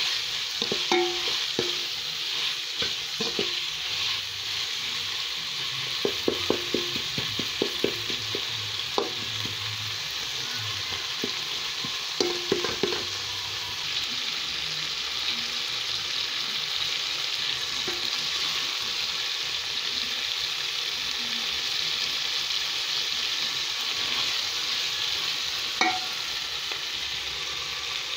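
Small fish and tomatoes sizzling in a metal pot with a steady frying hiss. A metal spoon stirring the pan clicks and scrapes against the pot in short runs, mostly in the first half and once more near the end.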